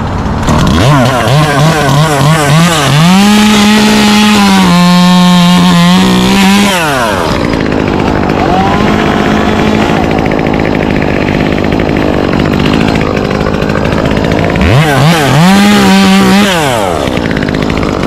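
Small two-stroke chainsaw revved in a few quick blips, then held at full throttle for about three seconds before dropping back to a steady idle. It is revved up again briefly near the end and settles back to idle.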